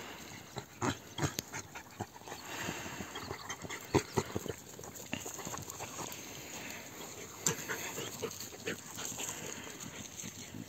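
Hunting hounds snuffling and panting as they cast about nose-down for hare scent, over irregular footsteps and knocks on loose stones, with a few sharper knocks standing out.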